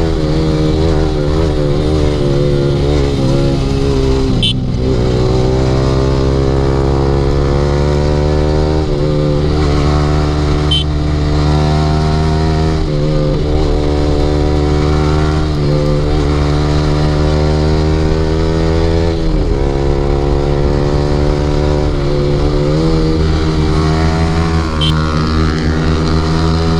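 Yamaha R15's 155 cc single-cylinder engine with an aftermarket Akrapovic exhaust, ridden hard: the revs climb again and again and drop sharply about six times as the throttle is closed or a gear is shifted. A steady low rumble of wind runs underneath.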